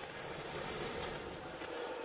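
Wood fire burning in a metal barrel stove: a steady low rushing with a faint crackle or two.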